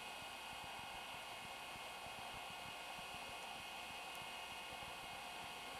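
Steady hiss with a faint hum: the background noise of an old home-video recording, with no distinct sound over it.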